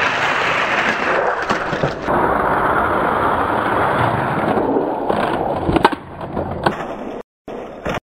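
Several Hot Wheels die-cast cars rolling fast down a plastic six-lane downhill track, a steady rolling rumble of small wheels on the track, with a few sharp clacks near the end as the cars reach the finish.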